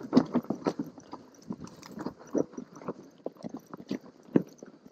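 Mountain bike rolling down a snowy, rocky trail: tyres crunching through snow and the bike rattling over rocks in irregular clicks and knocks, a few of them sharper jolts.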